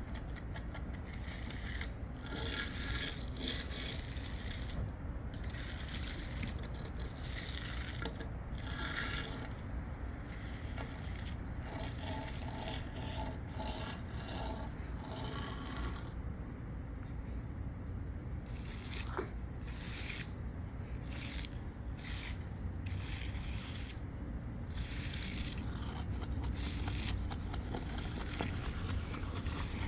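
Irregular scraping strokes of a hand finishing tool worked over concrete, over a steady low rumble.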